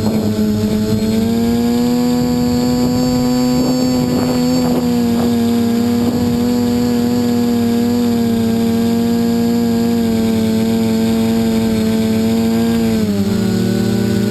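Multirotor quadcopter's electric motors and propellers whining steadily in flight, heard close up from a camera mounted on the frame. The pitch dips briefly near the end, then settles again.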